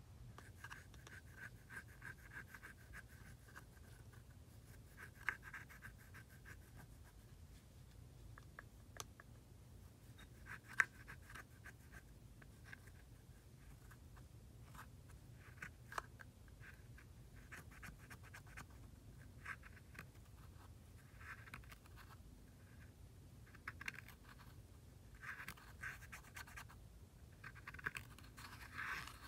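A plastic stick scraping pressed powder eyeshadow out of its palette pan: faint spells of fine, gritty scratching that start and stop, with a few light clicks.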